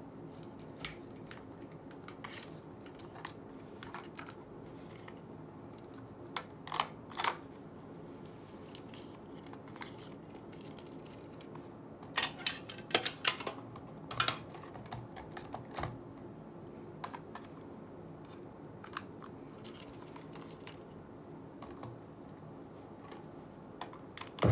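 Scattered light plastic clicks and clacks of a clear cassette tape being handled and loaded into a portable cassette player, with a quick cluster of sharper clacks about halfway through.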